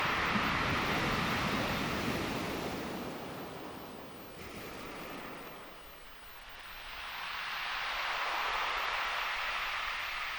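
Ocean surf: waves washing ashore in a steady hiss that ebbs away about halfway through and swells again as the next wave comes in.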